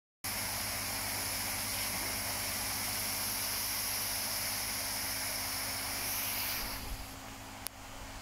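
Steady hiss with a low hum underneath, dropping in level about seven seconds in, and a single sharp click shortly after.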